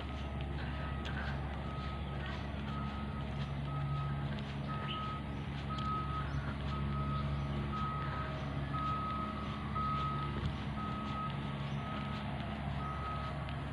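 A vehicle's reversing alarm beeping at one steady pitch about twice a second over a low steady hum. The beeping stops near the end.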